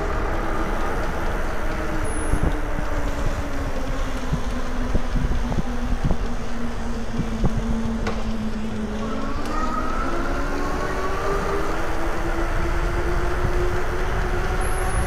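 Electric bike's hub motor whining, its pitch sinking slowly and then climbing again about nine seconds in, over a steady rumble of wind on the microphone, with a few knocks from bumps in the ride.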